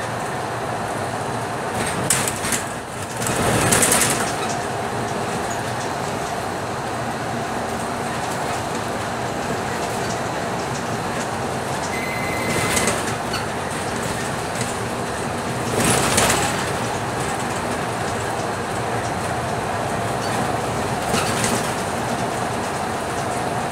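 Scania K310UB diesel bus heard from inside the cabin while cruising on an open road: steady engine and road noise. Brief louder swells rise over it a few times.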